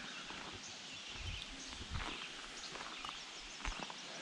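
A few soft footsteps on a sandy dirt track, over a steady outdoor hiss, with faint bird chirps in the background.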